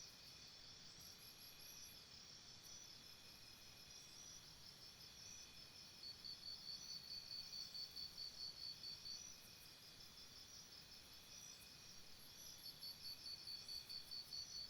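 Faint chorus of chirping insects: a steady high drone, with a high rhythmic chirp of about four pulses a second that comes in runs of a few seconds, once about six seconds in and again near the end.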